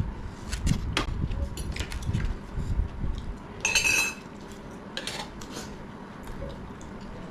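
Cutlery clinking and tapping against dishes, with scattered clicks and one brighter ringing clink about four seconds in.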